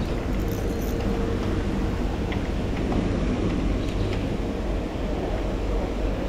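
A steady machine hum: a low drone with a faint constant tone above it, over a continuous rushing noise. A few faint ticks sound through it.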